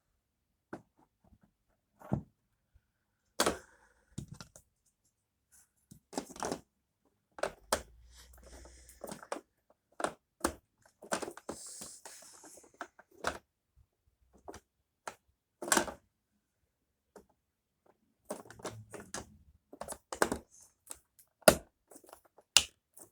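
Irregular plastic clicks, knocks and short rattles from a Dyson upright vacuum cleaner being handled and taken apart while switched off, about a dozen sharp knocks spread across the stretch with rustling between them.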